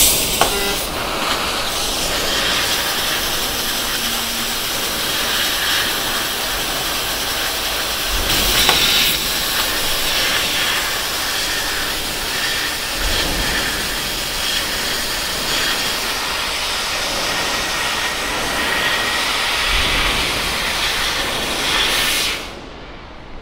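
8 kW fiber laser cutting mild steel with high-pressure compressed air as the assist gas: a steady, loud hiss of the air jet at the cutting head. It stops suddenly about a second before the end.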